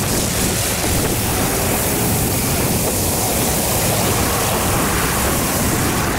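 Steady rushing noise of a Suzuki four-wheel drive rolling over a loose gravel track, its tyres on the stones mixed with wind on the microphone.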